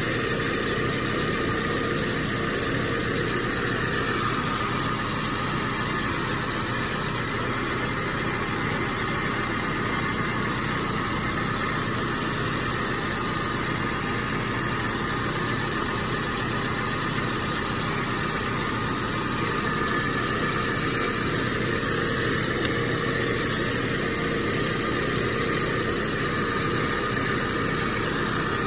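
Ford Bronco's 2.3-litre turbocharged four-cylinder engine idling steadily, heard from the open engine bay.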